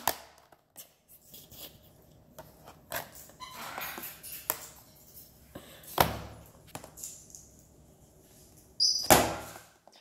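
An umbrella cockatoo biting and shoving at a clear plastic takeout container: scattered clicks and crackles from the plastic lid, and the tray knocking on a glass tabletop, with two louder knocks about six and nine seconds in.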